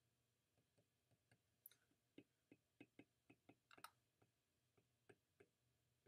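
Faint, irregular clicks of a stylus tip tapping on a tablet's glass screen during handwriting, a few a second.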